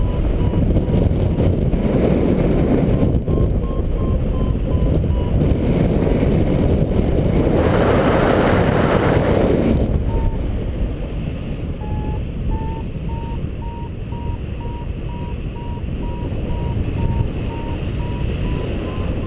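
Wind rushing over the microphone in flight, with a paragliding variometer beeping steadily over it. Its beeps signal that the glider is climbing. The beep pitch drops about ten seconds in and then rises again, and a stronger gust of wind comes around eight seconds in.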